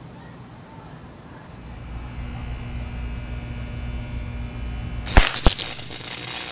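High-voltage electrical arc on a utility pole as a red-bellied woodpecker bridges the transformer terminals and is electrocuted: a loud crack about five seconds in, then two or three quicker snaps, followed by a brief hiss. A low steady hum comes before the crack.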